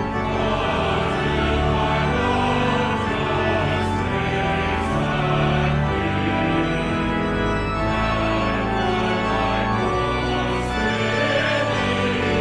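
A hymn sung by a choir or congregation over organ accompaniment, in slow, long-held chords.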